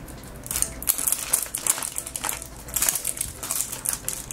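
Clear plastic seal strip being peeled off a plastic Zuru 5 Surprise capsule ball, crinkling and crackling in a string of irregular short crackles.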